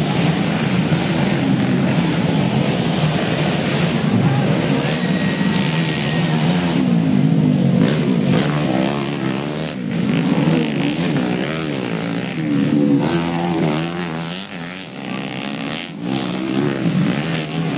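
Small dirt-bike engines revving up and down as the motorcycles race past, several at once, over crowd chatter.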